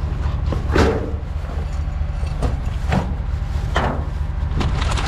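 A vehicle engine hums steadily in the background, with several sharp knocks and rustles spread through it.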